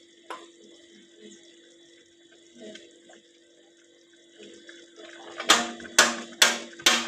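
Quiet kitchen sounds over a low steady hum, then from about five and a half seconds in, a run of sharp knocks about two a second, getting quicker: a cooking utensil knocking against the pot of sauce.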